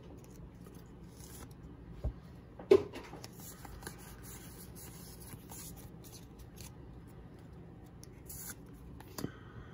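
Pokémon trading cards being handled and slid across one another, a soft rustle with a few short sharp taps; the loudest tap comes a little under three seconds in.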